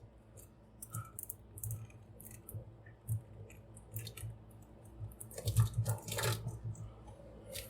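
Scattered small plastic clicks and crackles from an action figure and its parts being handled and set down, with a louder spell of rustling about five and a half seconds in.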